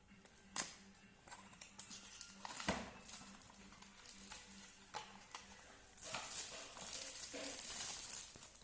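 Opening a speaker's paper box and its plastic seal by hand: scattered faint clicks and taps, then crinkly rustling of plastic and packaging from about six seconds in.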